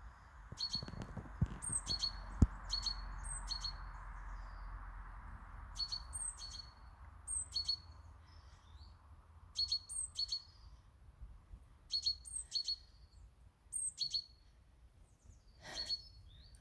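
A small bird chirping over and over: short, high chirps, each with a quick falling note, in pairs or small groups about every two seconds. A couple of sharp knocks sound near the start.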